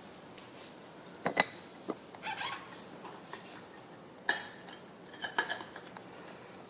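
Scattered light clicks, taps and scuffles, a few at a time, from a puppy and a baby macaque scrambling about on a woven cushion on a tile floor.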